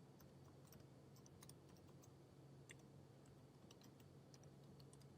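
Faint, irregular clicks of keys being typed on a computer keyboard, over a low steady hum.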